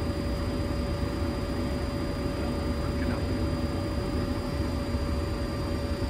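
Steady flight-deck noise of a Boeing 737-800 with its CFM56 engines at idle as it creeps in to park: a low rumble under a constant whine, with a few faint short chirps about halfway.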